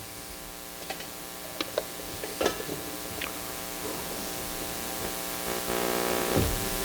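Steady electrical mains hum with a buzz of many overtones, broken by a few faint clicks, while a hiss slowly grows louder through the second half.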